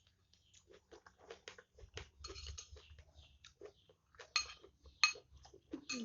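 Cutlery clicking and clinking against a bowl while chicken noodles are eaten close to the microphone, with small mouth sounds of eating between the clinks. Two louder, ringing clinks come about four and five seconds in.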